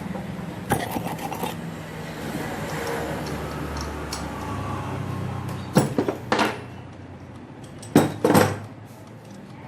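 Hand tools and metal parts knocking and clinking as a bearing is worked off an angle grinder's armature with a bearing puller. There are a few light knocks at first, then two louder pairs of clanks about six and eight seconds in, over a low steady rumble.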